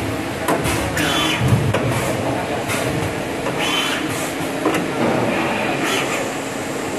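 Knee-type CNC milling machine changing tools with its four-tool automatic tool changer: a series of short motor whirs and sharp mechanical clunks, roughly one every second, over the machine's steady running.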